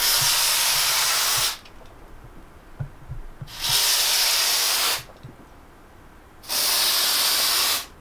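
WD-40 Specialist Electrical Contact Cleaner aerosol can spraying through its straw in three separate bursts of steady hiss, each about a second and a half long.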